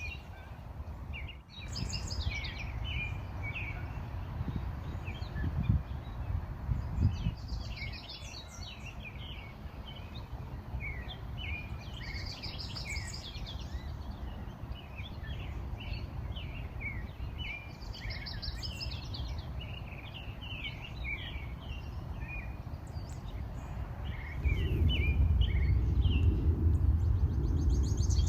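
Several small songbirds chirping and singing, with a trilled song phrase repeating every few seconds, over a steady low rumble that gets louder near the end.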